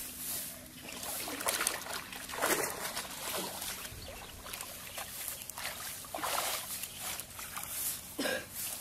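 Irregular splashing and sloshing of shallow muddy water, a short noisy stroke every second or so, with grass rustling.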